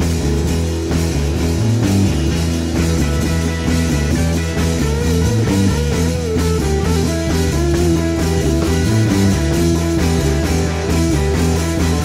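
1960s garage-rock song played on electric bass, drum kit with cymbals and guitar: a steady drum beat under a bass line and a moving melody.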